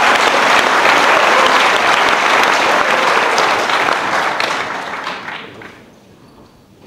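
Audience applauding, loud and steady for about five seconds, then dying away.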